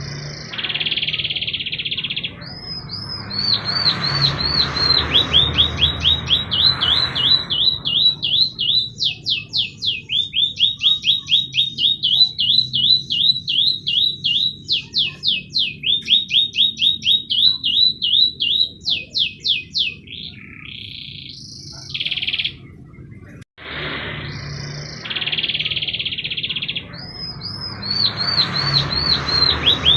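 Domestic canary singing: long runs of rapid, high repeated notes and fast trills, some as quick downward-sweeping chips. The song recording cuts out briefly a little before the end and starts over.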